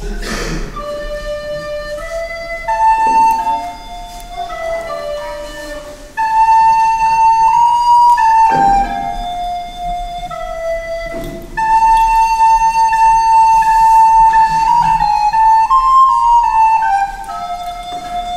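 Soprano recorder playing a slow solo melody, with several long held notes.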